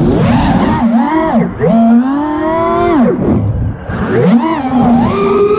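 FPV racing drone's electric motors whining, the pitch swooping up and falling away several times as the throttle is opened and cut.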